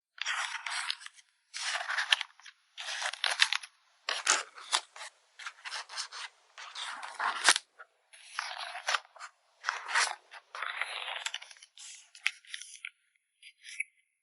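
Close-up handling of paper and plastic packing materials while photocards are packed: a quick run of short rustling, scraping strokes, one after another, with a sharp click about halfway through.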